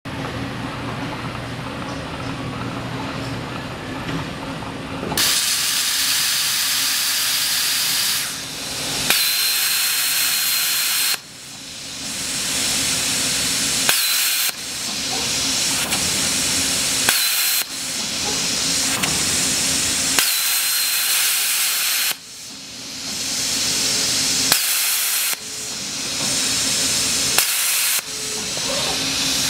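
Hypertherm HPR400XD plasma torch marking steel plate: after a low machine hum, the plasma arc comes on about five seconds in with a loud, steady hiss. The hiss cuts out and restarts about every three seconds, from one marked line to the next, and several restarts come with a sharp click as the arc fires.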